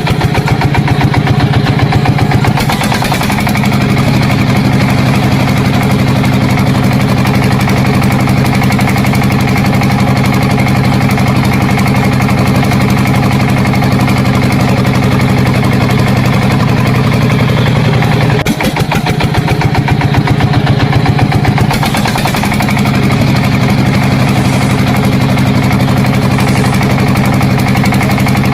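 Engine of a DIY mini bulldozer running steadily with a rapid pulsing beat. About two-thirds of the way through it dips for a moment, then runs harder and rougher for a few seconds before settling back.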